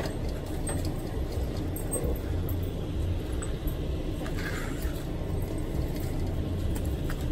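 Steady low rumble of outdoor background noise, with a few faint light rustles and clicks.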